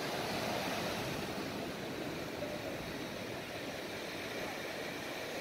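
Steady rush of surf breaking and washing up a sandy beach.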